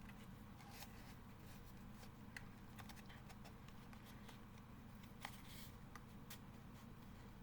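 Faint scattered clicks and light rustling of CD packaging being handled while a disc is worked out of its holder, over a low steady room hum.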